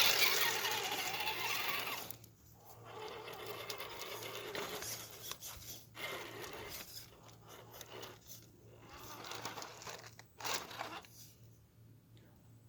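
Electric motor and gear drivetrain of an Axial SCX10 II RC rock crawler whining in spurts as the throttle is applied and let off. It is loudest in about the first two seconds, then stops and starts with short pauses.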